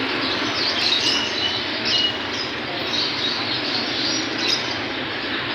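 Many caged birds chirping, short high calls scattered over a steady dense background noise.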